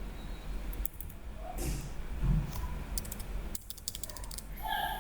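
Clicks from a computer keyboard and mouse: a few scattered ones, then a quick run of clicks about three seconds in, over a steady low hum.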